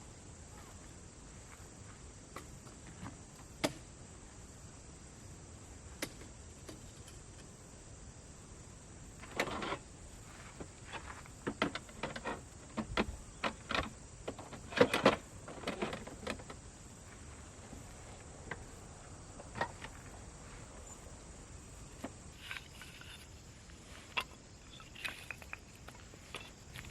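Scattered knocks, clicks and rustles of things being handled, busiest in the middle, over a faint steady hiss.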